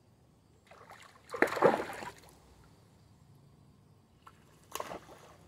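Water splashing twice: a loud splash lasting about a second, about a second and a half in, and a shorter one near the end.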